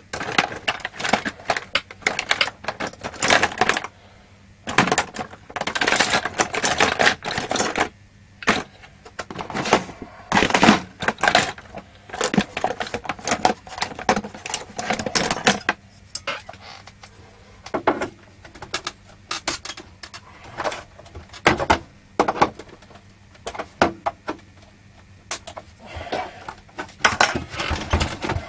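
Hard plastic case of a Macintosh 12-inch RGB monitor being pried and handled to free its snap catches: irregular clicks, knocks and creaks of the plastic, in uneven clusters.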